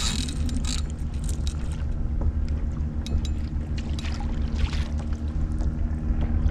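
Kayak moving on the water: small splashes and water sounds against the hull, over a steady low hum.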